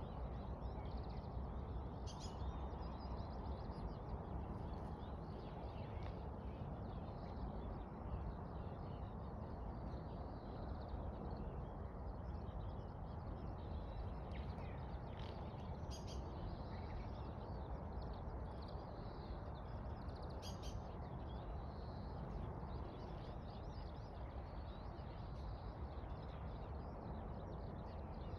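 Outdoor park ambience: a steady low background rumble with a few faint, short bird chirps, the clearest about two, sixteen and twenty seconds in.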